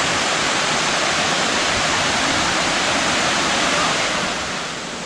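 Small waterfall cascading over rock steps into a rocky stream: a steady rush of water, easing a little near the end.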